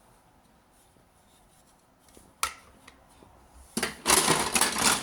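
Marbles clattering rapidly along a marble run track: a single click about halfway in, then a loud, dense rattle of many quick clicks starting near the end.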